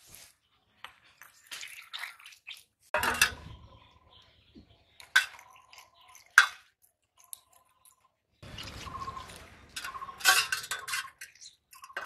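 Cut stinging catfish pieces being picked up off a wet stone floor and handled into a steel plate: a few sharp clinks and knocks, the loudest about six and a half seconds in, between wet handling sounds.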